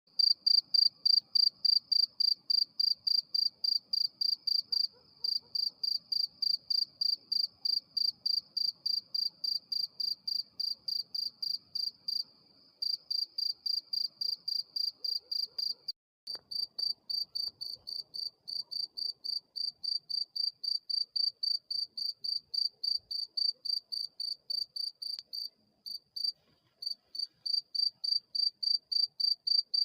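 A cricket chirping by rubbing its wings together, in a steady series of short, high-pitched chirps about three a second, with a few brief pauses.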